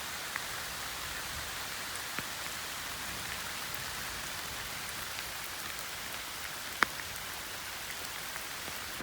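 Steady rain falling through the forest, an even hiss with a few sharper drop hits close by, the loudest about seven seconds in.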